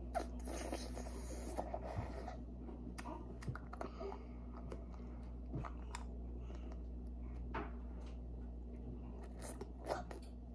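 Soft, scattered eating noises: lychee jelly being sucked and chewed from a small plastic cup, with light plastic crinkles and clicks. A steady low hum runs underneath.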